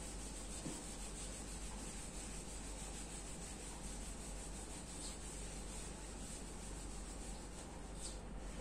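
Whiteboard eraser wiping across a whiteboard: a faint, steady rubbing.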